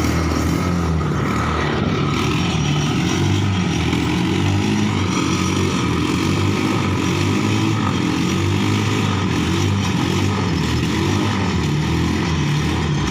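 Motorcycle engine driving a log winch, running steadily under load with its pitch wavering slightly.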